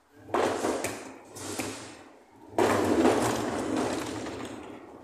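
Heavy wheeled flight cases rolling on their casters over a concrete floor. There are two long rolling pushes, the first about a third of a second in and the second near the middle, each starting suddenly and fading out, with small knocks and rattles.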